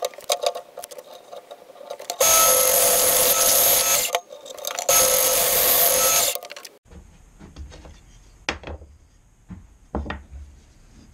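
Benchtop bandsaw cutting through a thick softwood block in two loud passes of about two seconds each, with a steady tone from the running saw throughout. About seven seconds in it gives way to quiet handling, with two light knocks of the cut-out wooden piece on a workbench.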